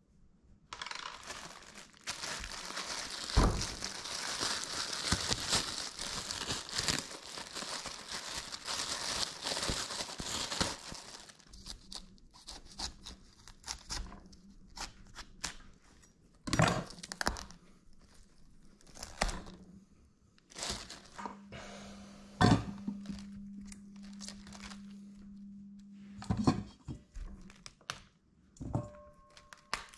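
A plastic produce bag crinkling for about the first ten seconds as a cauliflower is unwrapped. After that come scattered knife cuts and the crisp snaps and knocks of cauliflower florets being broken apart by hand on a wooden cutting board.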